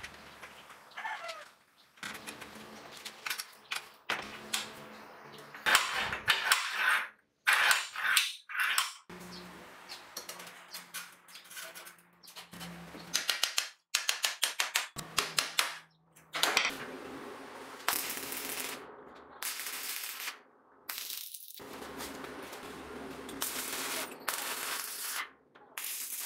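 Metalworking sounds cut together in quick succession: sharp metal clicks and knocks, runs of rapid ticking, and short bursts of a power tool running.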